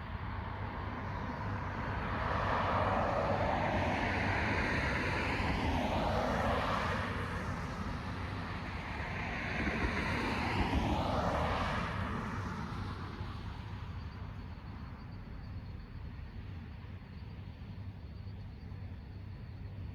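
Two cars passing one after the other, their tyre and engine noise swelling up and fading away; the first passes about three to six seconds in, the second about ten to twelve seconds in. A steady low hum runs underneath.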